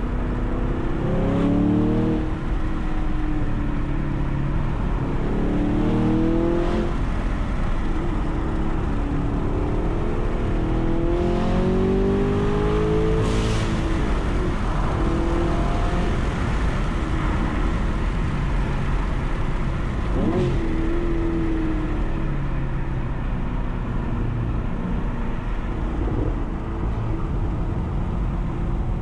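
Car engine being driven hard, its note rising under acceleration and dropping back several times, over a steady rumble of road and tyre noise.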